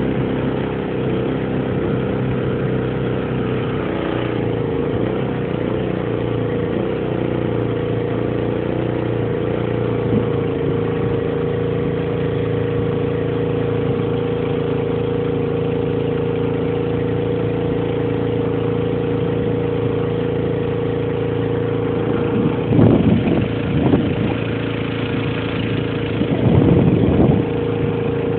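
Small duck boat's motor running steadily under way. Two brief louder bursts of noise break in near the end.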